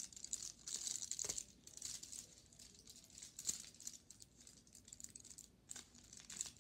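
Foil wrapper of a chocolate bar crinkling and tearing as it is unwrapped by hand, in uneven bursts of crackle.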